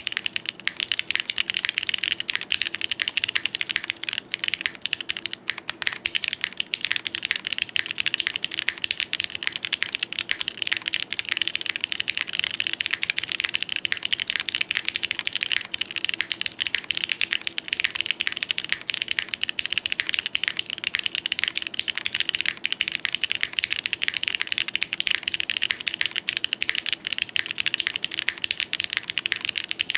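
Continuous fast typing on a Vertex Arc60 mechanical keyboard: plateless-mounted, lubed Gateron X linear switches with GMK keycaps, giving dense clicky key strikes, with a polyfill-dampened case. The typing starts suddenly and keeps an even pace throughout.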